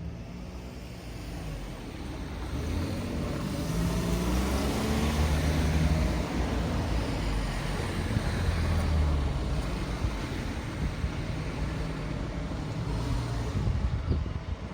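A motor vehicle passing close, its engine rising in pitch as it speeds up, over general road-traffic noise that swells and then eases off.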